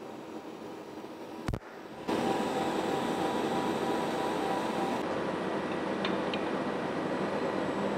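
Steady hum and hiss of TIG welding equipment left running after the AC arc has stopped, with a single sharp click about one and a half seconds in. The steady noise gets clearly louder about two seconds in.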